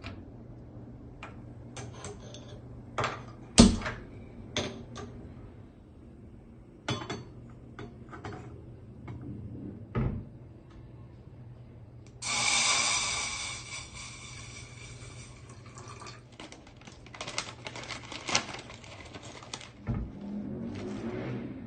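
Scattered sharp clicks and knocks, like handled hard objects, with a couple of seconds of running or pouring water about twelve seconds in, then quicker clatter.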